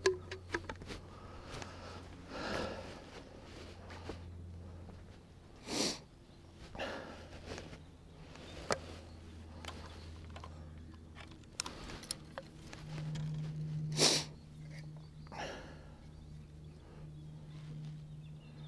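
Scattered light clicks and rustles of fishing tackle being handled as a pike rod is set up, with a few short, sharp noisy bursts, the loudest about 14 seconds in. A low steady hum sits underneath throughout.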